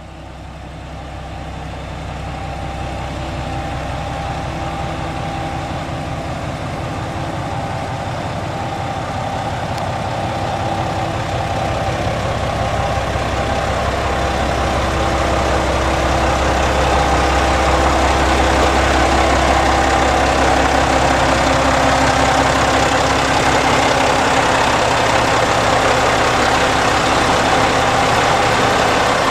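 Underfloor diesel engines of a JR Shikoku 2000-series tilting DMU running steadily while the train stands at a platform. It is a constant low hum with a steady whine above it, and it grows gradually louder.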